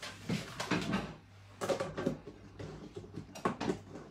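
Things being handled in a kitchen: a string of irregular short knocks, clatters and rustles.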